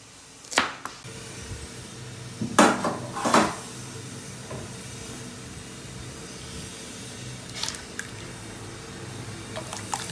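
Kitchen clatter of a knife, plastic cutting board and stainless steel pot: a sharp knock about half a second in, two louder clattering knocks around three seconds in, and another near eight seconds, over a steady low hum. Near the end, small splashes as carrot slices are scraped off the cutting board into the pot of water.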